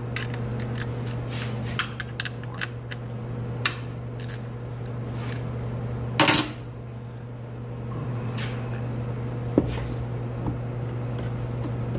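Scattered clinks and knocks of a plastic oil-drain bucket and tools being handled under a lifted car, with one louder clank about six seconds in, over a steady low hum.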